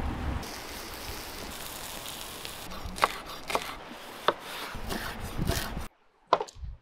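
Meat sizzling on hot stones over a fire, a steady hiss, then a kitchen knife slicing through a red onion onto a wooden cutting board in three sharp strokes. A couple of knocks near the end.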